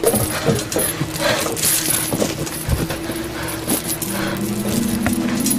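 Metal chain clinking and rattling in a run of sharp clanks. A low steady hum comes in about four seconds in.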